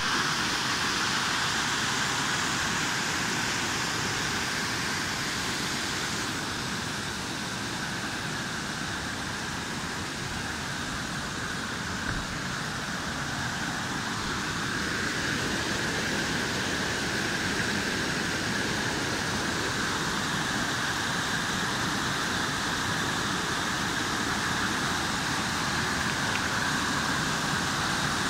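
White-water rapids rushing over rock ledges in a small waterfall: a steady, even rush of water, slightly softer for a few seconds mid-way.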